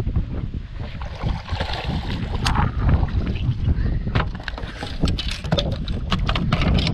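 Wind rumbling on the microphone throughout; from about four seconds in, a fast, irregular run of knocks and slaps as a small bass flops on the boat's carpeted deck.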